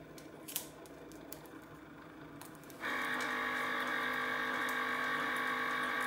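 A few faint clicks, then a steady electric hum with several fixed pitches starts suddenly about three seconds in.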